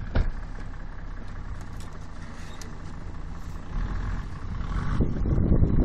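Toyota Land Cruiser 80's engine running low, with a single knock just after the start. From about four seconds in it revs up and grows louder and rougher as the truck pulls under load.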